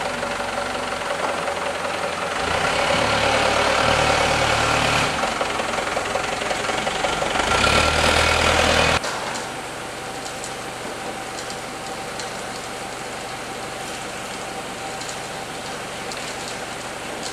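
Forklift engine running, louder for several seconds with a low rumble. About nine seconds in it gives way abruptly to a quieter steady machine hum with a faint steady tone and occasional light clicks from the crate stacking line.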